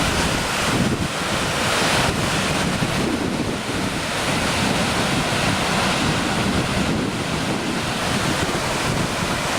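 Waterfall pouring steadily, a loud, even rush of falling water, with wind buffeting the microphone.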